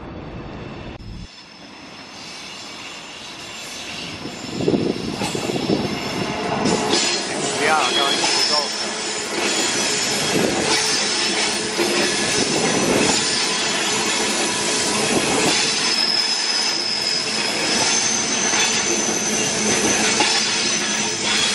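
Queensland Rail suburban electric multiple unit running past close by, growing louder from about four seconds in, with its wheels squealing high and steady and knocking over the rail joints.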